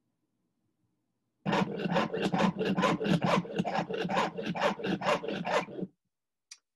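Rapid back-and-forth rasping strokes of a hand tool worked at a jeweler's wooden bench pin, about six a second. They start about a second and a half in and stop shortly before the end.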